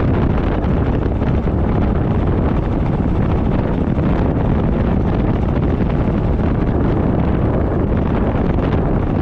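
Steady wind rush buffeting a GoPro Hero 10's microphone on a moving motorcycle, with the motorcycle's running and road noise mixed in.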